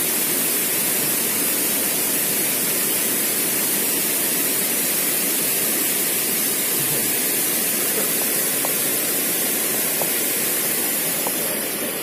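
River water rushing over rocks: a steady, even hiss of flowing water.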